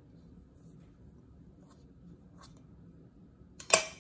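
Faint handling taps, then near the end a metal teaspoon clinks sharply against a stainless steel mixing bowl, twice in quick succession with a short ring.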